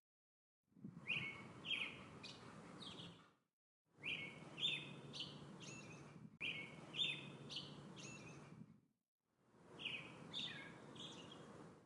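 Songbirds chirping, short bright notes over a background of low outdoor noise. The sound comes in stretches of about two and a half seconds that repeat almost identically, each cut off by a brief dead silence, like a short recording looped.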